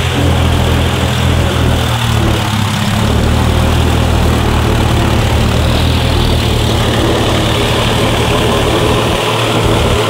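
John Deere tractor's diesel engine running steadily, heard up close from the driver's seat as the tractor drives through a flooded, muddy paddy.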